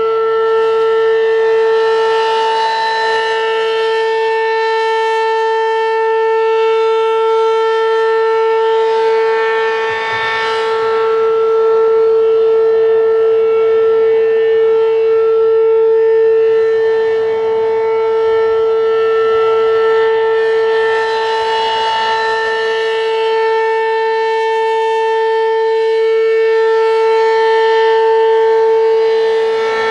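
American Signal Corporation RM-127 rotating mechanical outdoor warning siren holding a steady alert tone at full speed during a monthly test. The level swells and fades slowly several times.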